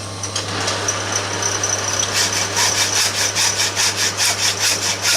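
Lathe motor running with a steady hum. From about two seconds in, metal is cut with rapid, rhythmic rasping strokes, about three to four a second, as the head of a custom bolt is cut off in the lathe.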